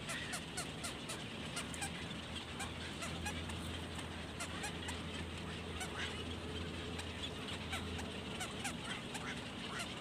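Black-crowned night herons at the nest: a dense chatter of short, rising calls, several a second, mixed with sharp clicks. A low hum runs underneath for a few seconds in the middle.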